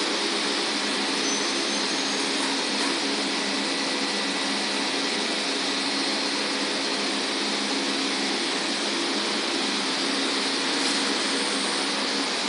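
Steady drone of factory machinery: an even whir and hiss with a low hum underneath, unchanging throughout.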